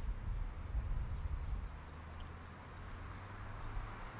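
Street ambience: a low rumble with a steady low hum underneath and a faint hiss, easing off a little midway.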